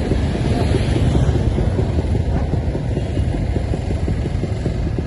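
Classic motorcycle engine idling, a steady low rumble made of rapid, even firing pulses.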